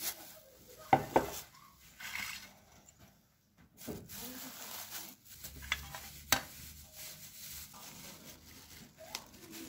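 Close-up kitchen handling: a glass bowl and plastic lid being moved and set down, giving a few sharp clinks and taps, with faint rustling and scraping of biscuits between. Two knocks come close together about a second in and another loud one after the middle.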